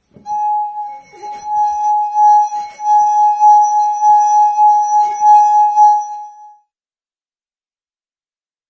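Glassware holding beer giving out one steady, clear, whistle-like tone for about six seconds, with a few knocks and clunks mixed in; the tone cuts off suddenly.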